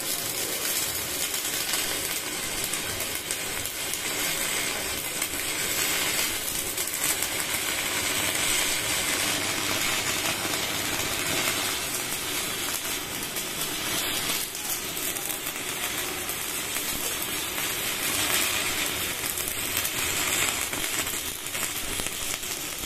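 Stick (MMA) welding arc from a Welding World MMA-245 GS DC inverter welder, a 10-number electrode burning into a steel shaft. The arc crackles and sizzles steadily with no break.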